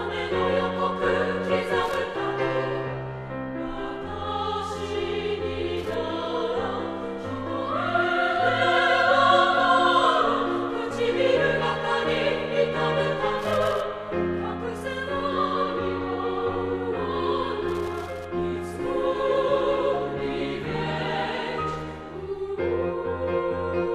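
Background music: a women's chorus singing sustained, slow-moving notes, with a high held note swelling about eight seconds in.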